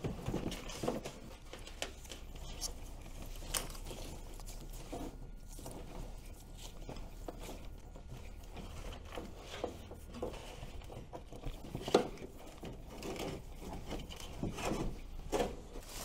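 Electrical wires and a cable being pulled through a hole in a plastic console floor: scattered light scraping, rustling and small knocks, with one sharp click about twelve seconds in.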